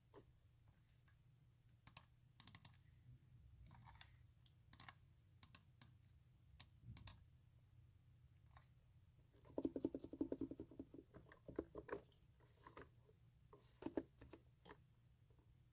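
Faint, scattered keystrokes on a computer keyboard, with a quick run of several taps about ten seconds in.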